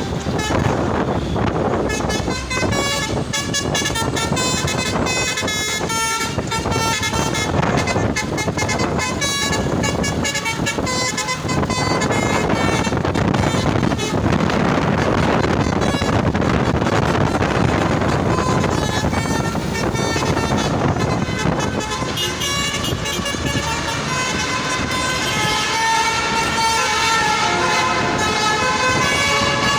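Truck's 'basuri' telolet horn, a multi-tone musical horn, playing a melody of changing notes over a steady rush of engine and road noise. The tune starts about two seconds in.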